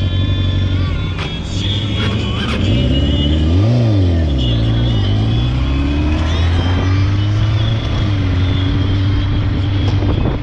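Motorcycle engine running in traffic, revving up quickly and dropping back about four seconds in, then picking up again.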